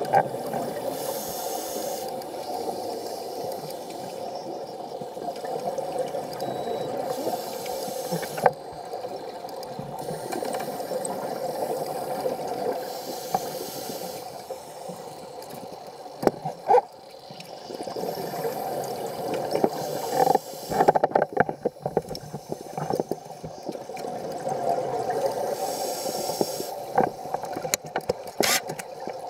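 Scuba diver breathing through a regulator, heard underwater: hissing breaths and gurgling surges of exhaled bubbles every several seconds over a steady hum, with scattered clicks and knocks.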